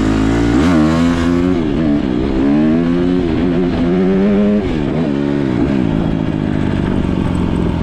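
Dirt bike engine on the move, revving up and easing off again and again, its pitch rising and falling about once a second as the throttle is opened and closed.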